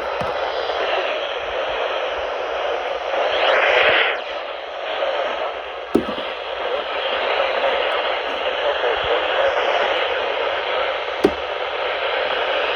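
Weather radio receiver hissing with steady static from weak reception. The hiss swells briefly about three to four seconds in, and there are two sharp clicks, about six and eleven seconds in.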